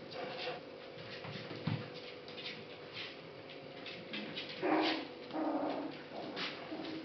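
Five-week-old puppies whimpering and yipping as they play, with two louder short cries a little past halfway. Light ticks of claws and paws on a wooden floor between them.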